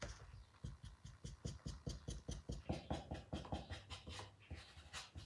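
A paintbrush being dry-brushed over a textured surface: quick, faint, scratchy brush strokes repeated about four or five times a second.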